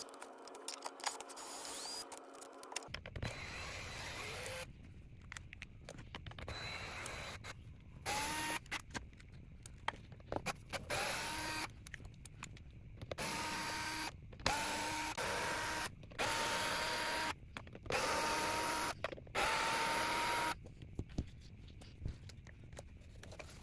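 Small electric screwdriver backing out case screws, whirring in about seven short runs of a second or so. Each run starts with a quick rising whine, and there are small clicks and handling noises between runs.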